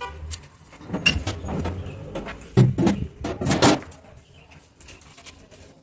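Irregular knocks, clatter and rubbing from things being handled while a refrigerator is cleaned, loudest in a run of noises from about two and a half to four seconds in.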